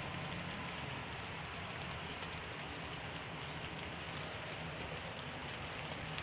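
Steady rainfall, an even hiss of rain falling on the ground and foliage, over a low steady hum.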